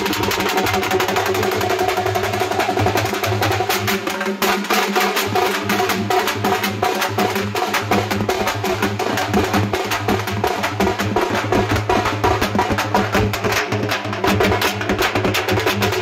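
Music driven by fast, dense drumming, with strokes coming too rapidly to count and steady tones underneath.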